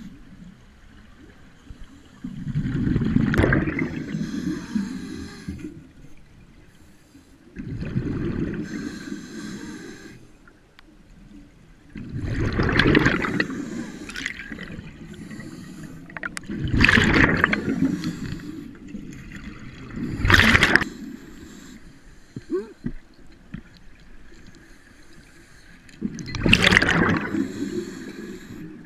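Scuba diver breathing through a regulator underwater: about six loud bursts of exhaled bubbles, one every four to five seconds, with quieter stretches between breaths.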